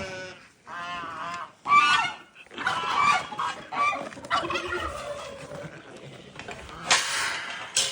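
Farmyard poultry calling: a series of loud, wavering calls over the first few seconds, then a short rough noise near the end.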